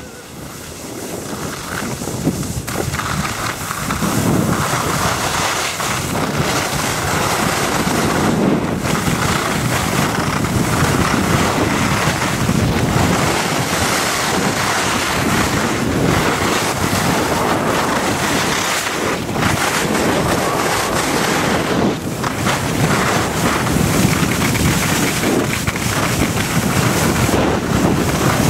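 Wind rushing over the microphone of a camera carried by a downhill skier, mixed with the hiss and scrape of skis on packed, tracked snow. It grows louder over the first few seconds as speed builds, then stays steady.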